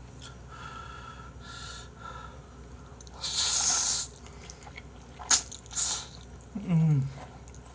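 A mouthful of black-bean sauce instant noodles slurped in one loud, hissing suck about three seconds in, followed by two sharp wet smacks of chewing and a brief hummed 'mm' near the end.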